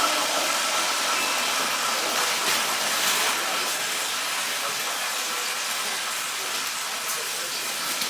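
Water running steadily from a tap, a continuous rushing hiss.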